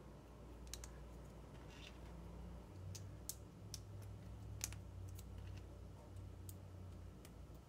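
Faint, scattered sharp clicks of small plastic LEGO pieces being handled and pressed into place, with a low hum through the middle.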